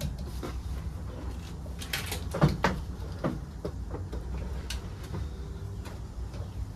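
Knocks and clatter of a Toyota Tacoma's rear bumper assembly being lifted and pushed into place against the truck, the loudest cluster about two and a half seconds in, over a steady low hum.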